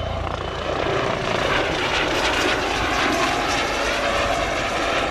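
Dutch police Eurocopter EC135 helicopter flying past, a steady rotor and turbine engine sound.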